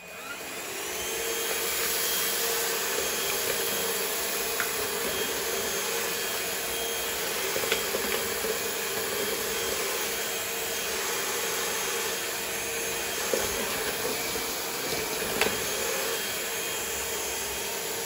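Grundig VCH 9632 cordless stick vacuum cleaner switching on and running steadily on carpet, its motor giving a steady whine over a rush of suction noise. A few light ticks can be heard during the run.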